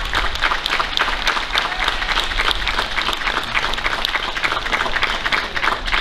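Audience applauding: many people clapping steadily and densely.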